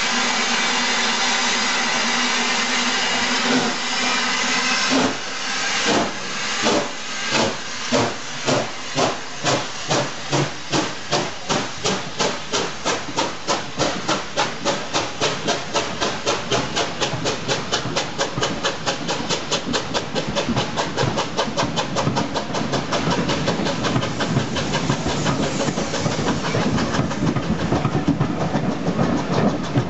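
Steam locomotive starting away with a train: steam hissing, with a whistle held for about the first three seconds, then exhaust beats begin about five seconds in, slow at first and quickening steadily until they blur together as the coaches run past.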